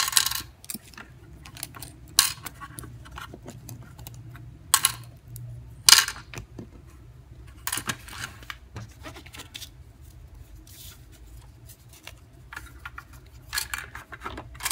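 Toy cash register and plastic play coins being handled: a scattering of sharp clicks and clacks at irregular intervals as coins and parts are put in and moved.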